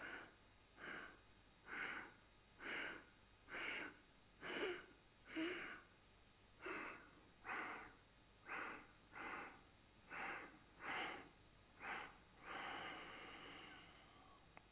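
A person breathing in short, separate puffs, about one a second, then one longer breath near the end. This is yoga segmented breathing, the air taken one step at a time, alternating abdomen and chest.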